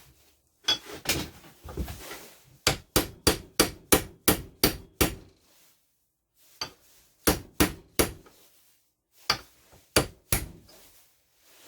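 Hammer tapping on clutch roller parts. It starts with a few scattered taps, then a quick run of about ten at roughly two to three a second, a short pause, and two more small groups of taps.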